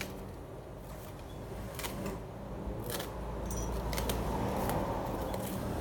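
Hand pruning shears snipping lime-tree branches: a series of sharp cuts about a second apart, over a low rumble that swells in the middle.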